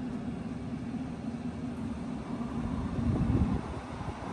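Steady low electrical hum of an appliance running under heavy load off the inverter. A brief low rumble comes about three seconds in.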